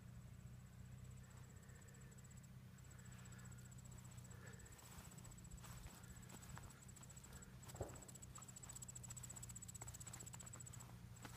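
Insects trilling: a faint, steady, high-pitched trill made of rapid fine pulses, with a couple of short breaks, over a low rumble and a few soft taps.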